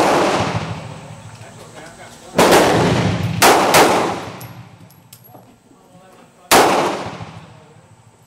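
Ruger LCR .38 Special revolver firing single shots: the tail of one shot at the very start, then a shot about two and a half seconds in, two quick shots about a second later, and one more about six and a half seconds in. Each shot rings out for a second or more under the range's roof.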